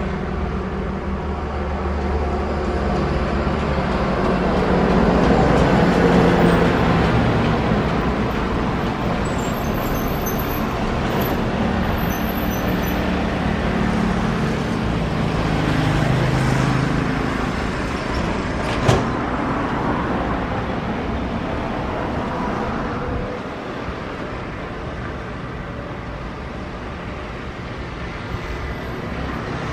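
Boeing 777-300ER's twin GE90 jet engines running at low power as the airliner taxis after landing, a steady rumble with a hum, swelling a few seconds in and easing off after about twenty-three seconds. A single sharp click about two-thirds of the way through.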